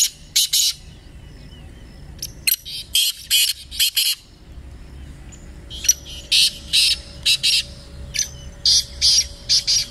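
Caged francolins (teetar) calling in a calling contest: groups of three to five short, loud, high-pitched notes, repeated about every two to three seconds.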